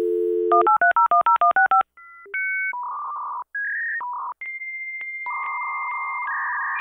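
Dial-up modem connecting: a telephone dial tone, then a quick run of about ten touch-tone dialing beeps, then the handshake's beeps, a long steady high tone and hissing screech.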